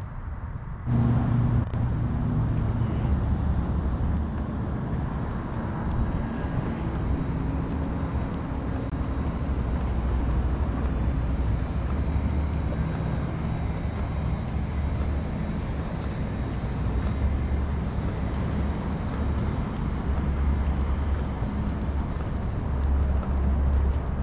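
Steady outdoor background noise with a low rumble and hiss, which starts abruptly about a second in.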